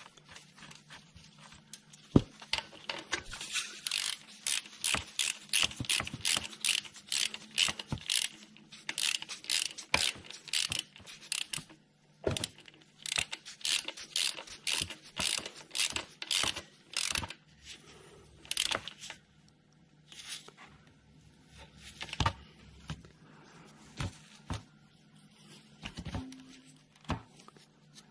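Quarter-inch ratchet clicking as it runs a nut down onto the starter motor solenoid's signal-wire terminal, in steady strokes a few per second with a short break about halfway; only a few scattered clicks near the end.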